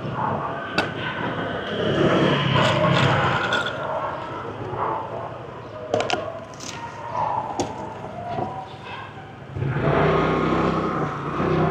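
Busy city street traffic: engines running and passing, with a few sharp clicks and knocks. A louder low engine hum comes in near the end.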